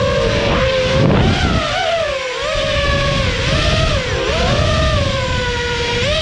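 Electric motors and propellers of a 5-inch FPV quadcopter whining, the pitch dipping and rising over and over with the throttle. Under it is a rumble of wind on the onboard camera's microphone.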